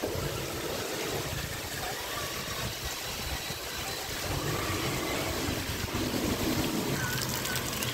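Electric motors and gears of RC crawler trucks whining faintly, rising and falling as they drive through shallow floodwater. Running water and rain make a steady hiss.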